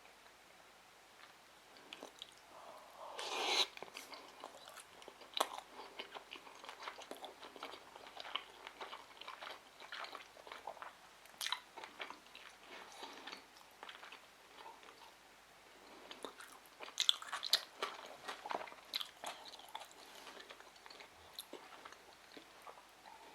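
Close-up chewing and biting of sushi rolls: wet, crackly mouth sounds in short irregular bursts, loudest about three and a half seconds in and again in a cluster about seventeen to nineteen seconds in.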